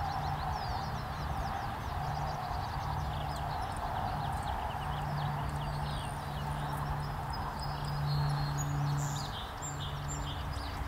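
Small flock of Lawrence's goldfinches twittering: a continuous stream of short, quick, high chips and notes over a steady low hum.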